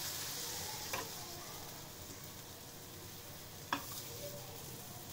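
Besan-batter-coated bread slice sizzling as it fries on a hot nonstick tawa. The sizzle fades over the first couple of seconds, with two light clicks, about a second in and near four seconds.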